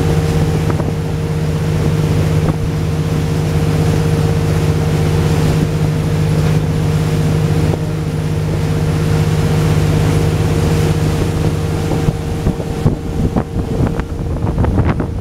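Boat engine running with a steady drone under water and wind noise. Wind buffets the microphone more unevenly near the end.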